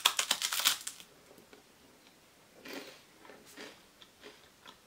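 Biting into a crisp, dry coconut wafer bar: a quick run of crackling crunches in the first second, then quieter chewing.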